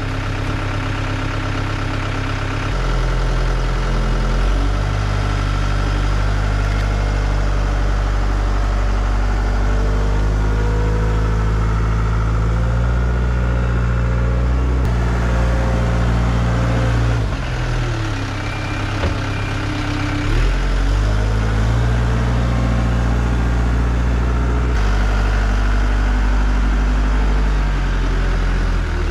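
Skid steer's diesel engine running, its speed stepping up and down: it rises about three seconds in, sags and recovers briefly a little past halfway, and drops back again near the end.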